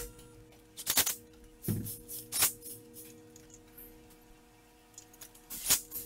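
Background music: steady held tones with sharp, shaker-like percussion hits scattered through it.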